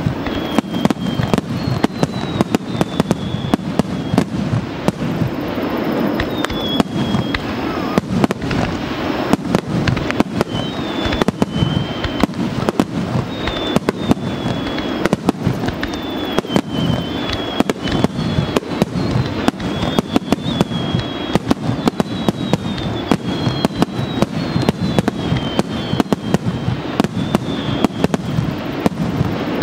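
A fireworks display: a fast, unbroken string of bangs and crackles from aerial shells and stars bursting, with short, high, falling whistles through it.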